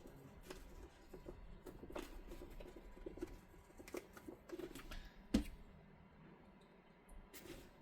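Stiff X-Pac laminated fabric being handled and fitted: crinkly rustling with scattered small clicks and taps, and one sharper knock about five seconds in.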